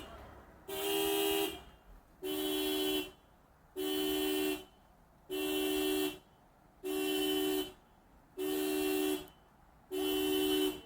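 Car horn honking on its own in an even repeating pattern, seven two-note blasts, each nearly a second long and about one every second and a half. The honking is set off by the car's dying battery.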